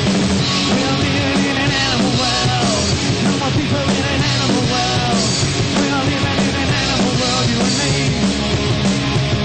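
Punk rock band playing live at a steady, loud level.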